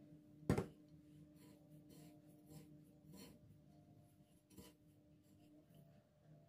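Dry breadcrumbs scraping and rustling as a batter-coated sausage on a wooden skewer is rolled and pressed in them on a ceramic plate, with one sharp knock about half a second in.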